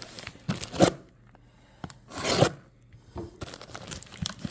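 Package being handled: short bursts of rubbing and scraping packaging, the loudest just under a second in and just over two seconds in.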